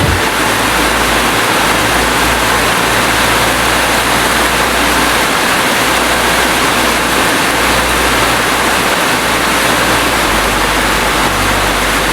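Steady heavy rain, a dense, even hiss with no distinct drops.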